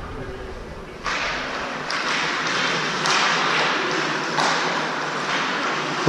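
Ice hockey skate blades scraping and carving on the ice, a hiss that starts suddenly about a second in and comes again in fresh scrapes about every second.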